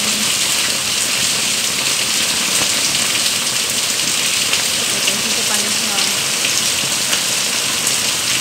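Heavy rain pouring down, a steady dense hiss of falling water.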